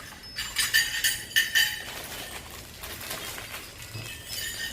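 Cutlery clinking against plates and bowls during a meal: a quick run of sharp clinks in the first two seconds, then quieter, scattered ones.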